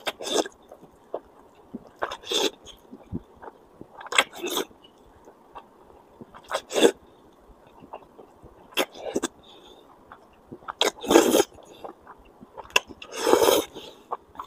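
A person slurping chilli-coated noodles close to the microphone: about seven loud, breathy slurps, roughly two seconds apart, with small wet chewing clicks between them.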